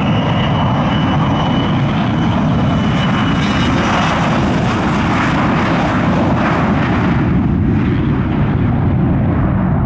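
Gulfstream business jet on its takeoff roll, its twin rear-mounted turbofans at takeoff power: a loud, steady rush of jet noise. A high whine fades out about a third of the way through, and the hiss thins near the end as the jet moves away.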